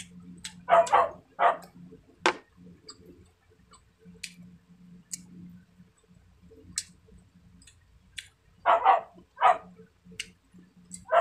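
A dog barking in short sharp barks, in two bunches: three or four about a second in and three more near the end.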